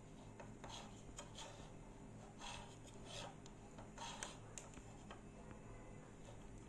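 Diagonal cutting pliers scraping and nicking the PVC insulation off the green-yellow and blue wire cores: a few faint, short, scratchy strokes, the clearest about halfway through, over a low steady hum.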